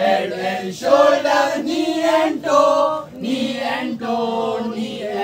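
A group of voices singing together in unison, in short held phrases with brief breaks between them.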